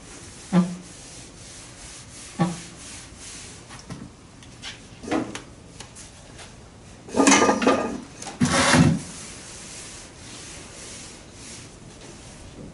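Gloved hands rubbing over the primer-surfaced steel body of a 1978 Lincoln Mark V while smoothing the primer. There are a few short scuffs a couple of seconds apart, then two longer, louder strokes a little past halfway.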